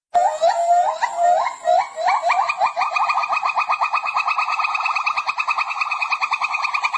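A monkey calling: a few separate rising chirps that quickly speed up into a fast, even trill held for several seconds.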